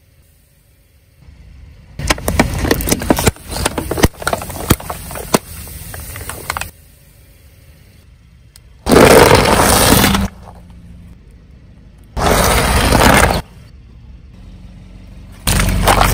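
A car tyre crushing plastic soda bottles fitted with balloons: a few seconds of crackling, crunching plastic broken by sharp cracks. Later come three short, loud bursts of squashing noise a few seconds apart as the tyre runs over soft rubber toys and jelly cups.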